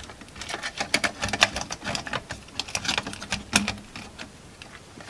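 Irregular clicks and light knocks of a circuit board being pressed back into a metal viewfinder chassis and its connectors pushed home, thinning out near the end.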